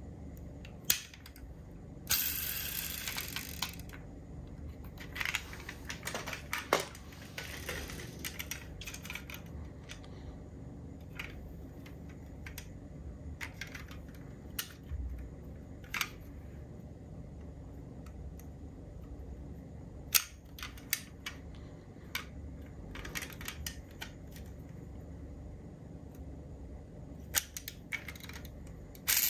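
Small diecast metal toy cars being handled: a scattered series of sharp clicks and clacks, with a few short stretches of scraping or rattling.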